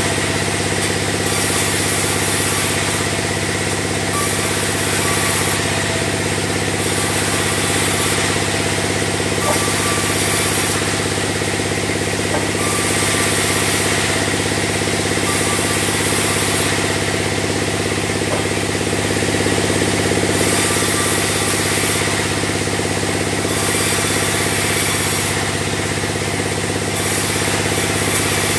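Sawmill band saw running steadily while sawing logs into beams: a constant machine hum, with a high hiss of the blade in the wood that swells and fades every second or two.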